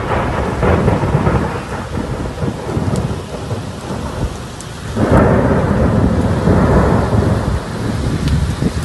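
Heavy thunderstorm: dense, steady rain noise under a deep rumble that swells louder about five seconds in.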